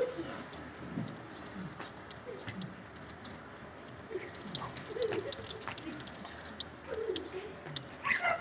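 Birds calling: doves cooing in repeated low calls, with small birds chirping in short high notes.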